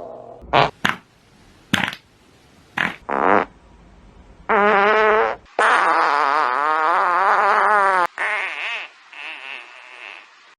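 A string of fart sound effects: several short blasts in the first few seconds, then two long farts with a wavering pitch from about four and a half seconds in, trailing off into weaker sputters near the end.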